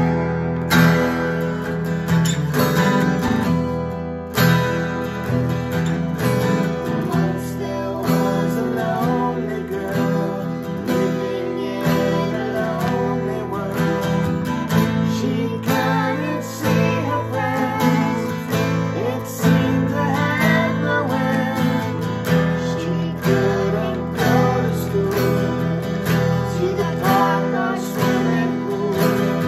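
Two acoustic guitars, an Epiphone and a smaller blue one, strumming chords together in a slow ballad, joined by a man and a girl singing a duet.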